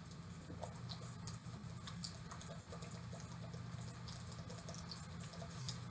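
A person drinking water from a plastic bottle: the water moves in the tipped-up bottle, with faint small clicks and crackles.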